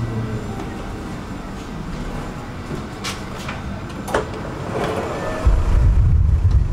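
Interior hum of a tram standing at a stop, with a few sharp clicks and knocks around the open doorway in the middle. About five and a half seconds in, a louder low rumble starts as the sound moves outside onto the stop.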